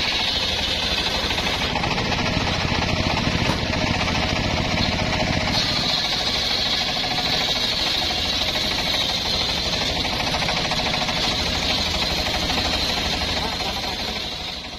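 Homemade motor-driven circular sawmill ripping an old mahogany log lengthwise, the blade cutting steadily through the wood with a loud high saw noise over the low hum of the drive. It dies away just at the end.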